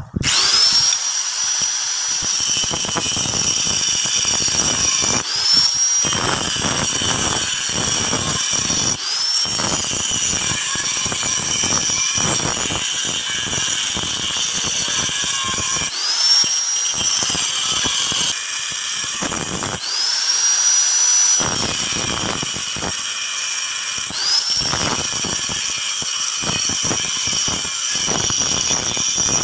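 Angle grinder with a thin cutting disc cutting the outline of a cleaver blank made from old leaf-spring steel. It is switched on right at the start, then gives a steady high whine over harsh grinding, and the whine briefly rises in pitch several times.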